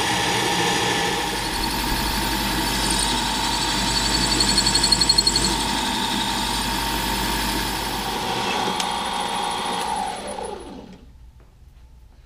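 Small benchtop metal lathe running and turning aluminum stock, a steady motor hum with a high whine. About ten and a half seconds in it is switched off and spins down with falling pitch.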